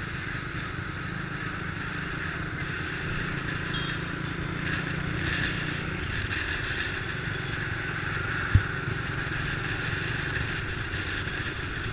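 Small motorbike engine running steadily while riding, with the hum of surrounding motorbike traffic. A single low thump about eight and a half seconds in.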